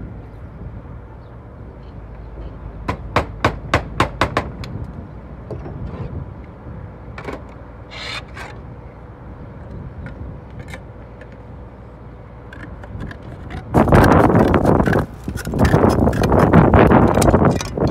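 Slater's hammer driving a nail to fix a round-cut roofing slate: a quick run of about eight light taps a few seconds in, then a few scattered knocks and scrapes of slate. A loud, rough rustling noise comes in near the end.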